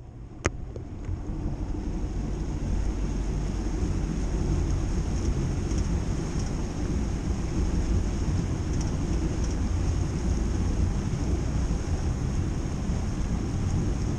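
Bass boat under way across a lake: a steady rumble of the motor and water along the hull with wind buffeting the microphone, building over the first couple of seconds as the boat gets going. A single sharp knock about half a second in.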